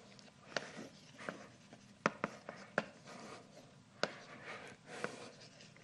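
Chalk writing on a blackboard: faint scratchy strokes broken by sharp, irregularly spaced taps as the chalk strikes the board.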